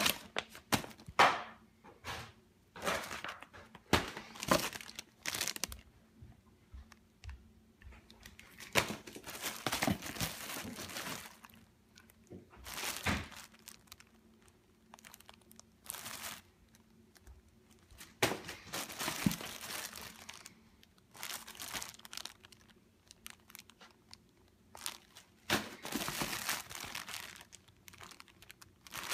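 Clear plastic packaging bags crinkling and rustling in irregular bursts as packages are handled and pulled out of a cardboard box.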